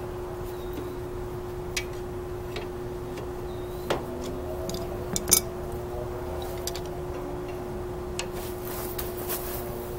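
Metal clicks and clinks of a wrench and pliers on the starter-generator mounting of a garden tractor, as its slipping belt is being tightened. The loudest knocks come about four and five seconds in, over a steady low hum.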